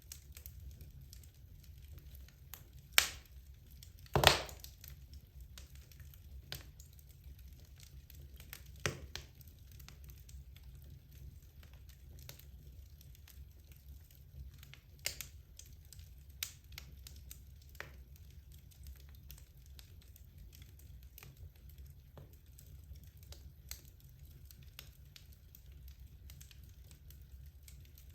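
Wood fire crackling in a fireplace: irregular sharp pops and snaps from the burning logs, the loudest a few seconds in, with smaller ticks scattered throughout over a faint low hum.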